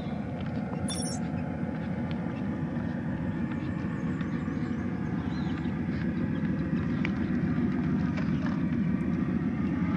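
Traxxas TRX-4 1/10-scale RC crawler driving over twigs and dead wood, heard under a steady low rumble of wind on the microphone, with a few faint snaps and ticks.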